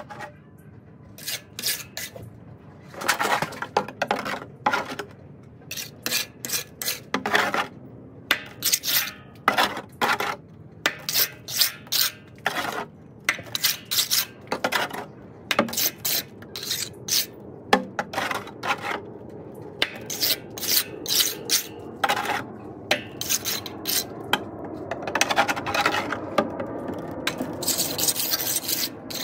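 Small steel trowel scraping and spreading wet stucco finish coat over a textured stucco wall, in many short, irregular strokes that run together into steadier scraping over the last several seconds.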